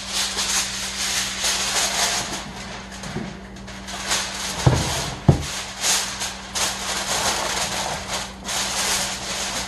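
Aluminium foil being crinkled and crimped down over a roasting pan: loud, continuous crackling and rustling, with two dull thumps about five seconds in.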